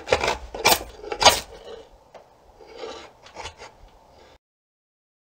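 Draw knife shaving an Osage orange bow stave, cutting away wood down to a growth ring: three sharp scraping strokes about half a second apart, then a few fainter strokes, before the sound cuts off to silence about four seconds in.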